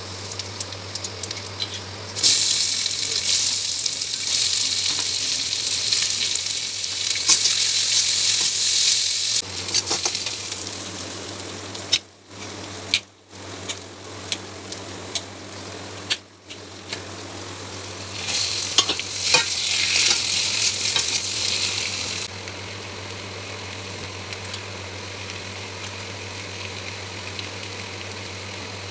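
Food sizzling and frying in hot oil in a pan while it is stirred. The sizzle is loud for about seven seconds early on and again for about four seconds in the second half, and is fainter in between and at the end.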